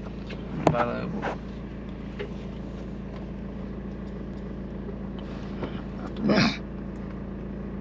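A car's engine running steadily while driving slowly, heard from inside the cabin as a low even hum. A brief voice-like sound comes about a second in, and a short loud burst about six seconds in.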